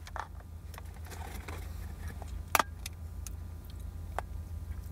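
Low steady hum inside a car, with a few small clicks and taps of objects being handled; the sharpest click comes about two and a half seconds in.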